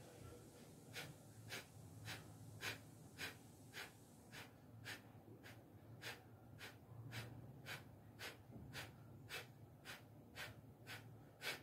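Kapalbhati yoga breathing: a run of short, forceful exhalations through the nose, evenly paced at about two a second, faint.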